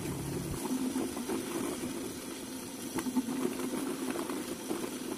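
Ocel SDL 160 electric vegetable chopper running steadily while grating turmeric, a steady motor hum with a few faint ticks.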